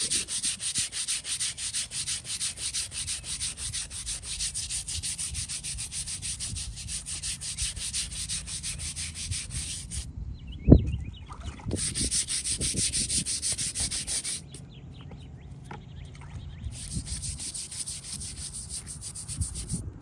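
Stiff hand scrub brush scrubbing a stone headstone in quick back-and-forth strokes, about four a second. The scrubbing stops briefly about halfway through, when there is a single loud thump, then resumes and turns softer for the last third.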